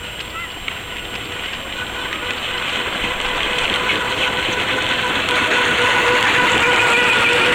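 Drift trike wheels rolling fast on asphalt downhill: a steady whining hum over road rumble that grows steadily louder as the trike picks up speed.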